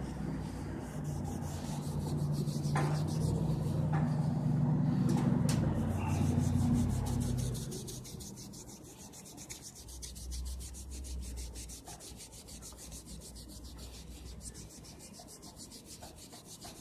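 Hand rubbing on a steel chromed cart handle during the work of sanding and polishing away rust. The rubbing is loudest for about the first eight seconds, then carries on more quietly.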